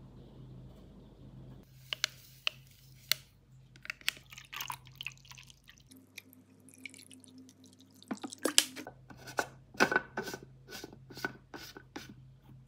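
A plastic tumbler being handled to make a coffee drink: sharp plastic clicks and knocks, then water poured from a plastic bottle onto the coffee about halfway through. Near the end comes a fast run of clicks and taps as the lid and straw are handled.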